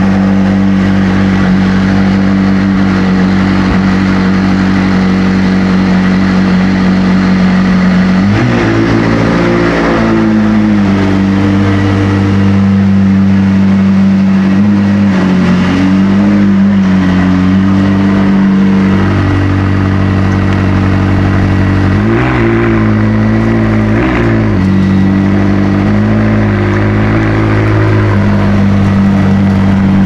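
McLaren 600LT's twin-turbo V8 running at a steady idle just after starting, with brief revs up about eight seconds in and two more a little past twenty seconds.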